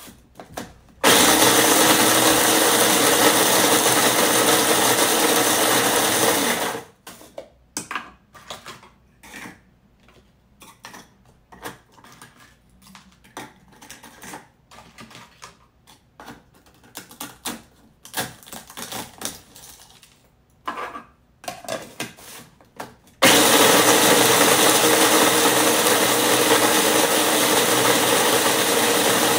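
Small electric food processor grinding dried eggshells into powder: a steady motor whir that runs for about six seconds starting a second in, then starts again at about 23 seconds and keeps going. Between the two runs, scattered light clicks and knocks as shells are handled and added.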